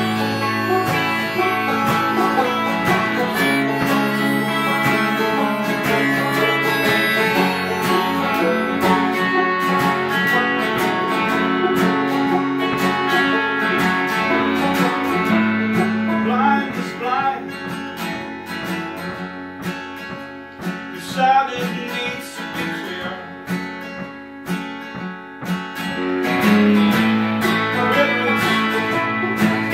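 Two acoustic guitars and a banjo playing a song together, strummed and picked. About halfway through the playing thins out to sparser, quieter picking for several seconds, then the full ensemble comes back in near the end.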